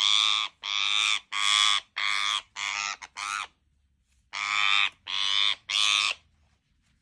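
Rose-ringed (ring-necked) parakeet screeching in alarm: a run of harsh, loud half-second squawks, six in quick succession, a pause of about a second, then three more. The bird is frightened and not tame.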